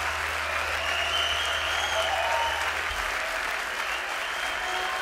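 A crowd applauding steadily, a dense even clapping with faint voices in it.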